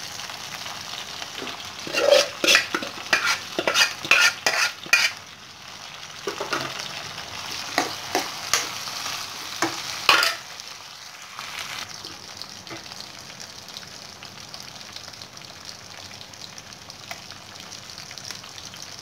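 Boiled chicken pieces sizzling as they go into hot oil with fried onions and greens in a pan, with a run of scrapes and knocks of utensils against the pan from about two seconds in, the loudest near ten seconds. After that, a steady frying sizzle.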